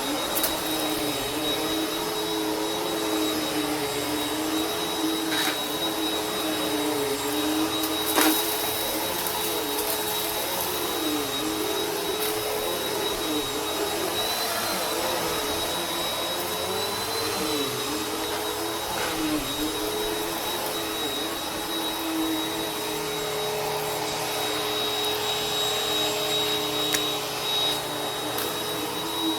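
Vacuum cleaner running steadily: a motor whine over airflow hiss, its pitch dipping briefly and recovering every few seconds. A short click about eight seconds in.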